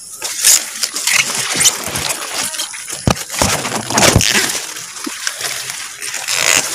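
Large leaves rustling and crackling as the plants are brushed aside and handled, with a few sharper snaps about three and four seconds in.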